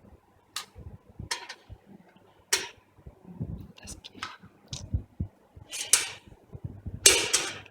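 Scattered sharp clicks and knocks of desktop computer hardware being handled, irregularly spaced, with a longer, louder rattle near the end.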